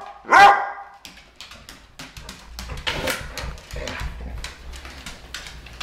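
A dog gives one short pitched, yowling "talking" call, then its claws click on a hardwood floor as it walks and moves about.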